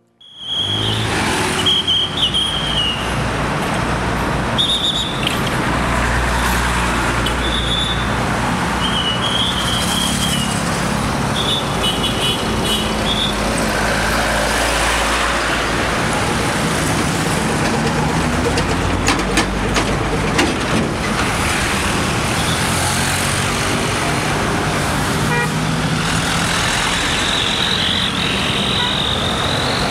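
Scania K410 bus diesel engine running as the bus pulls away, mixed with passing road traffic. Several short high-pitched horn toots come in the first dozen seconds, and another high tone comes near the end.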